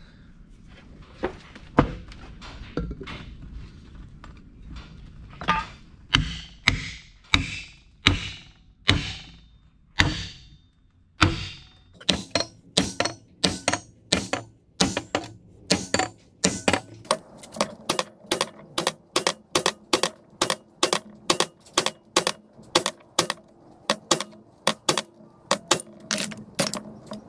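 Hammer blows driving a bushing into a pump jack's saddle bearing housing. A few scattered strikes at first, then from about halfway through steady blows at about two a second, each with a metallic ring.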